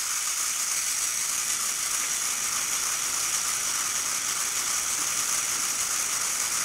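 LEGO Technic gondola station's electric motors and plastic gear trains running steadily as the cabins are carried through the station.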